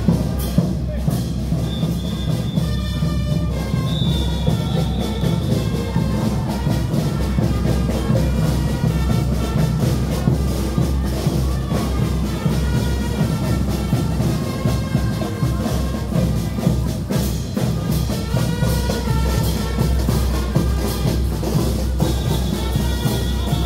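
Caporales music from a brass band with drums: held brass melody lines over a dense, steady beat.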